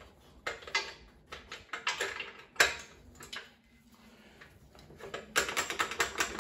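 Hands working around a bare aluminum engine block. A bungee cord is unhooked with scattered light metal clinks and taps, one sharper clink near the middle. From about five seconds in comes a fast run of small clicks.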